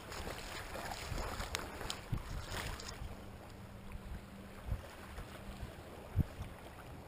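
Wind on the microphone over small waves lapping in shallow seawater, with light splashing as a hand-held sea bass is released into the water. A short thump about six seconds in is the loudest moment.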